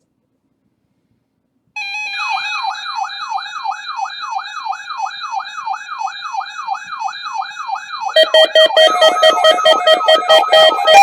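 After a short silence, an electronic alarm tone starts, sweeping upward again and again about three times a second over steady higher tones. About eight seconds in it gives way to a louder, evenly pulsing synthesized keyboard pattern.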